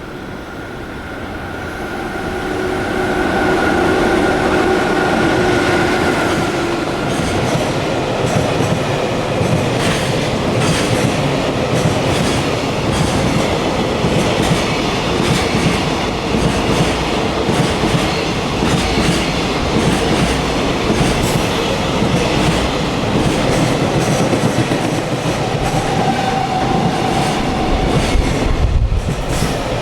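JR Freight train hauled by an EF66 100-series electric locomotive passing, its sound building over the first few seconds. A steady whine runs through the first several seconds, then the wagons roll by in a loud, steady rumble with rapid clicking of wheels over the rail joints.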